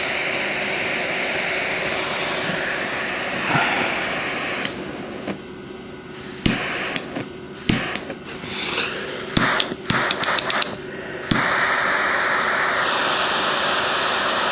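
Cohiba quad-jet torch lighter burning with its four jet flames set high, a steady hiss. Partway through, the hiss drops away and comes and goes among a series of sharp clicks, with a quick run of clicks a little before it settles back into a steady, slightly louder hiss.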